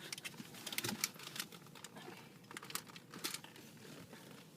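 Faint rustling with scattered light clicks and knocks, from a child fumbling with a car seatbelt and shifting on the seat.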